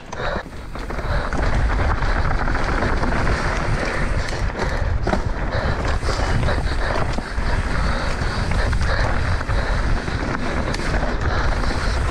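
Wind buffeting the microphone as a mountain bike descends dry dirt singletrack, with tyres rumbling over dirt and scattered clicks and knocks from the bike's chain and suspension rattling over bumps. It gets louder about a second in as the bike picks up speed.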